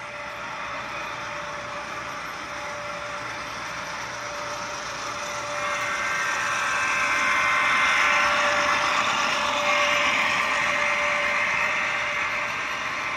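HO scale CSX GE ES44AH model diesel with a sound decoder running past: its onboard speaker plays a steady diesel engine sound, mixed with wheels rolling on the track. The sound swells as the locomotive nears and passes about halfway in, then eases off.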